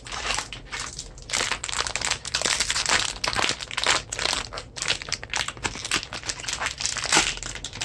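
Foil blind-box bag being crinkled and crumpled between the hands close to the microphone: a dense, continuous run of sharp crackles.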